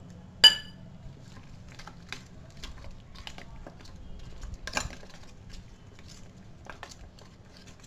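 Steel spoon scraping and tapping in a stainless steel mixing bowl as a thick flour batter is stirred. A single ringing steel-on-steel clink sounds about half a second in, and a louder scrape comes near five seconds.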